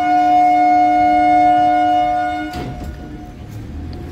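Electric multiple-unit local train's horn sounding one loud, steady blast of about two and a half seconds that cuts off sharply: the departure signal as the train pulls out of the station. A low rumble of the train getting under way follows near the end.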